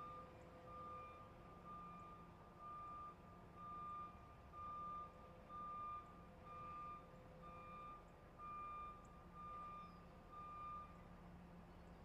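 A truck's reversing alarm beeps faintly at one steady pitch, about once a second, and stops near the end. A low steady hum runs underneath.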